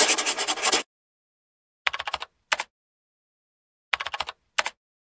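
Glitch sound effects from an animated outro: a burst of rapid stuttering clicks, then two short clusters of fast clicks, the first about two seconds in and the second about four seconds in.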